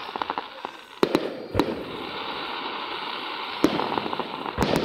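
Aerial fireworks shells bursting: several sharp booms, some close together in pairs, with runs of rapid crackling near the start and again shortly before the end.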